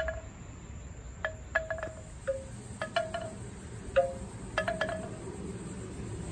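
Wind chimes ringing: about ten light, irregularly spaced strikes, each a short ringing tone.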